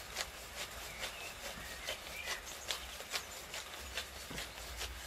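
Hand pepper mill grinding black peppercorns, twisted in a steady rhythm of about two to three short grinding clicks a second.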